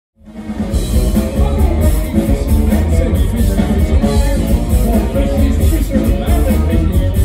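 Live rock band playing through a PA: electric guitars, bass, keyboards and drums, heard from among the crowd. The music fades in from silence within the first second, then runs on loud and full.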